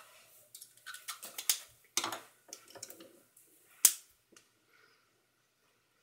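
Pens being handled on a wooden desk: a run of sharp clicks and taps, the loudest a single hard tap about four seconds in, as a pen is set down on the desk.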